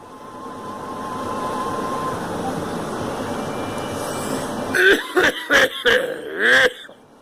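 A person coughing in a rapid fit of about five harsh coughs about five seconds in, the last one drawn out and voiced. Under it is a steady rushing noise that builds up over the first couple of seconds.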